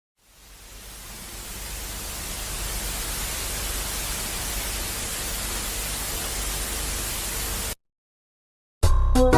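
Static hiss, like white noise, fading in over about two seconds, holding steady, then cutting off abruptly. After a second of silence, music starts right at the end.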